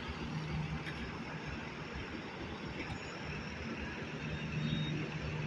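Motor vehicle engine running with a steady low hum over road and traffic noise.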